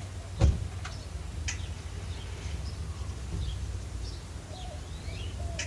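Small birds chirping and calling over a steady low rumble, with one loud sharp click about half a second in and a few fainter clicks after.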